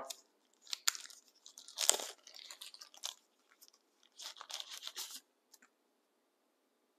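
A small product box and its packing being opened and handled: faint rustling and crinkling in three short spells, with a few small clicks.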